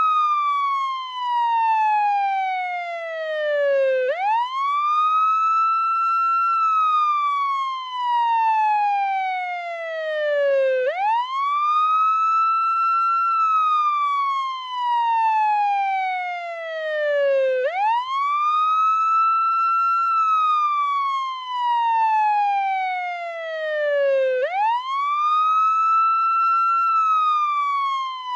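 Portuguese ambulance wail siren. The tone sweeps up quickly, holds briefly at the top, then falls slowly for about four seconds before sweeping up again, a cycle roughly every seven seconds.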